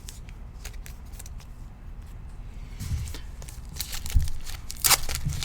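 Trading cards and foil card-pack wrappers being handled on a table: scattered light clicks and a few soft thumps, with louder crinkling near the end.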